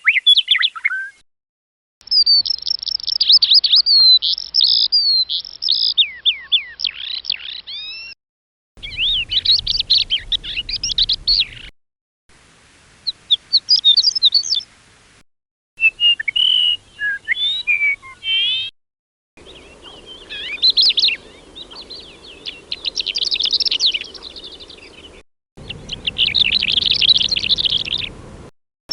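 Birdsong: a sequence of short recordings of different songbirds, each a few seconds of rapid chirps, trills and gliding whistles, cut one after another with brief silences between them.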